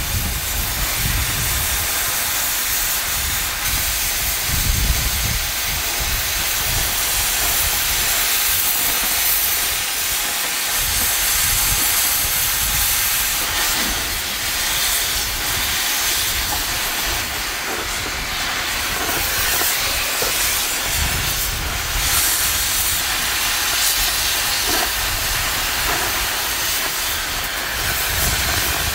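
Oxy-fuel cutting torch hissing steadily as its oxygen jet burns through the thick steel of a steam locomotive's wheel and frame, with an uneven low rumble beneath.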